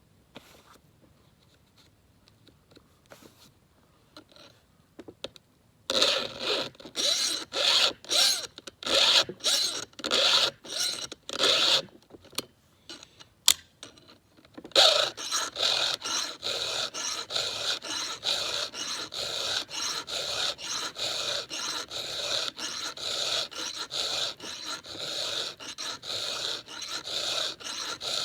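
A 7/32-inch round file rasping across the cutter teeth of a 32-inch Husqvarna X-Cut saw chain, hand-sharpening. After a few quiet seconds come separate strokes about two a second, then a short pause with a couple of sharp clicks, then a steady, faster run of filing strokes.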